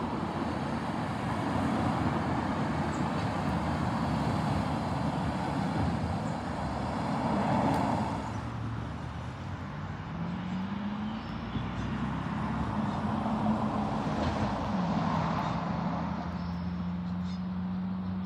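Road traffic noise: vehicles pass on the road, the sound swelling as each goes by. In the second half a steady engine hum joins in and shifts up and down in pitch a few times.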